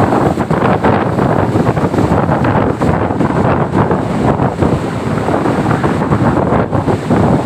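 Strong wind buffeting the microphone in a loud, continuous rumble, over the rush of heavy surf.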